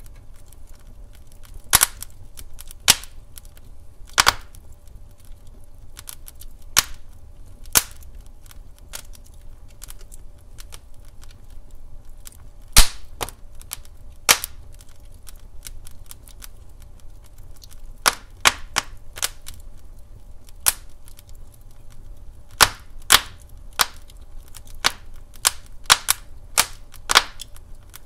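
Wood fire crackling in a fireplace: irregular sharp pops and snaps of burning logs over a faint steady low rumble, with one louder pop about halfway through.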